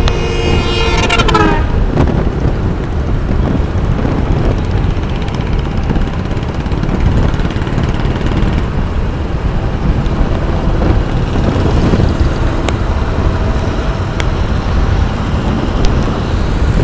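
Wind buffeting the microphone over engine and road noise from an Aprilia SXR160 scooter riding at speed on the highway, a dense steady rumble. A short pitched tone sounds in the first second and a half.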